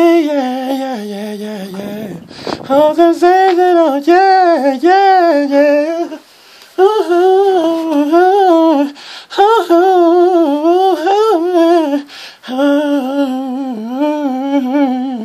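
A man singing wordless R&B vocal runs, the melody wavering up and down in quick ornamented riffs, with brief pauses about two and six and a half seconds in.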